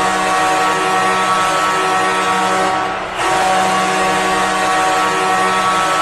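Jokerit's 2016-17 ice hockey goal horn sounding a loud, steady, low blast after a goal. It breaks off briefly about three seconds in, then a second long blast begins.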